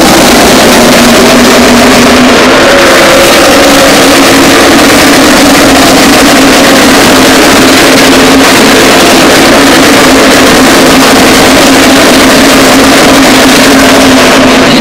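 Very loud, steady drone of a field of NASCAR stock cars' V8 engines running around an oval together, their pitch drifting only slightly.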